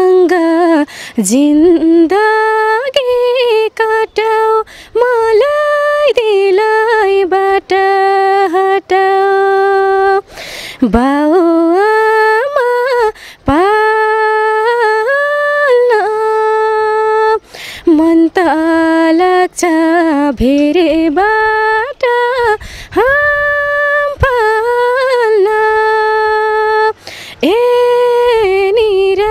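A young woman singing a Nepali song unaccompanied into a handheld microphone, holding long notes with a slight waver in pitch, with short breaks for breath.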